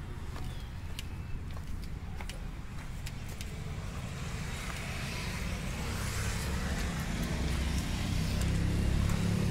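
Truck engine idling, a steady low rumble that grows louder toward the end, with a few faint clicks early on.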